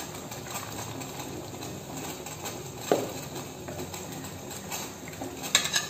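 A spatula stirring curry in a clay pot over a steady faint hiss. The spatula knocks sharply against the pot once about three seconds in, and gives a few more clicks near the end.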